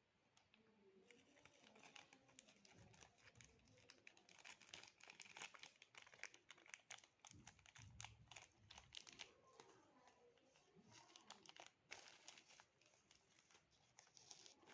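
Faint crinkling and rustling of product packaging handled by hand during unboxing, with irregular crackles throughout and a brief low rumble about eight seconds in.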